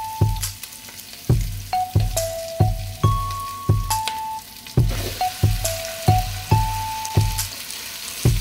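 Background music with a steady beat and a short repeating melody, over the sizzle of sliced onions and garlic frying in oil in a pot; the sizzle grows louder about halfway through.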